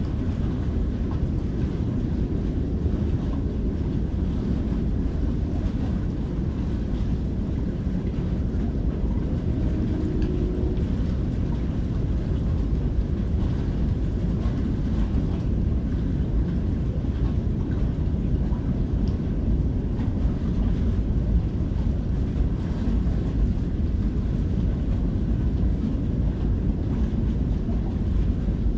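Steady low rumble of outdoor background noise, even throughout, with no distinct events.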